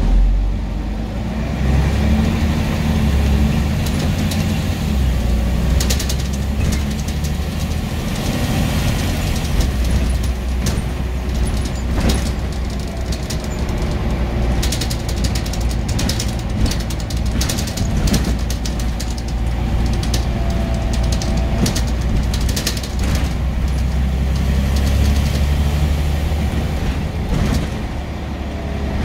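Scania N94UB single-decker bus running under way: a low diesel engine note that steps up and down several times, with frequent rattles and clicks throughout.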